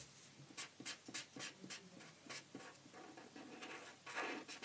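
Felt-tip pen scratching on paper in quick, short strokes as a letter is coloured in, with a brief soft rushing sound near the end.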